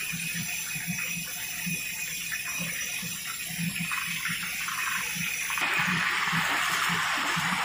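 Leg of mutton deep-frying in hot oil in a wok: a steady sizzle of bubbling oil, turning louder and brighter about five and a half seconds in.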